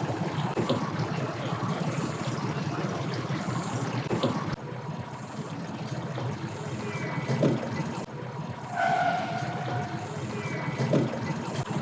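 An engine running steadily at low revs, a constant low hum.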